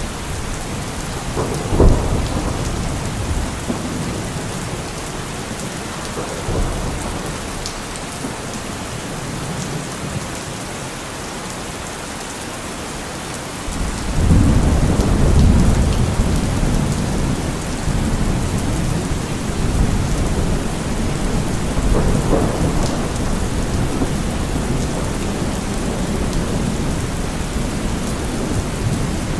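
Steady rain with thunder: a sharp clap about two seconds in, then a long low rumble that starts about halfway through and rolls on for several seconds.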